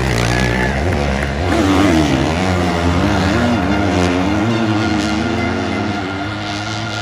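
Two-stroke and four-stroke motocross bikes racing through a dirt turn, their engines revving up and down as the riders work the throttle. The engines are loudest about two seconds in.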